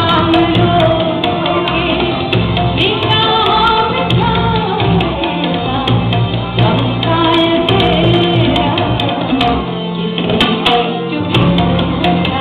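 A woman singing a ghazal live, her voice in long, bending melodic lines, over tabla strokes and steady held instrumental notes.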